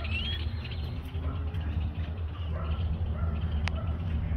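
A bird's repeated rising chirps that stop about half a second in, over a steady low rumble, with a single sharp click about three and a half seconds in.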